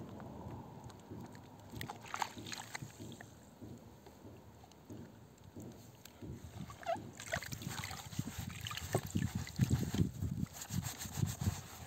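Wet hands lathering a bar of soap in a basin of water: sloshing, squelching and dripping. From about seven seconds in, the squelching gets louder and denser as a foam sponge is rubbed and squeezed against the soap.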